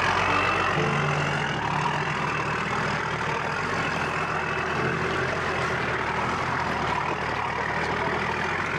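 Nissan Patrol 4x4's engine running steadily at low revs as the vehicle crawls slowly up a steep, rocky track.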